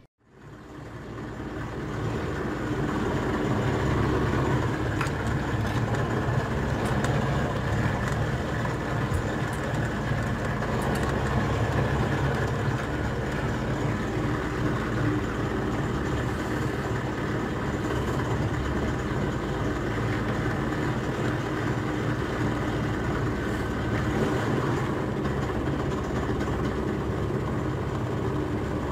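A fishing boat's engine running steadily, a constant low hum that fades in over the first couple of seconds.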